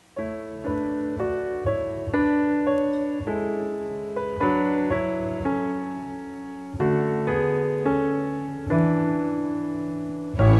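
Slow, gentle piano music: single notes and chords are struck and left to ring and fade, changing about once a second. Near the end a louder, fuller accompaniment with bass comes in.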